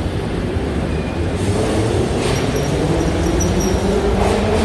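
Kyiv Metro train moving along the station platform as it comes in, with a steady rumble of wheels and motors. A few short, high brake squeals sound about halfway through as it slows.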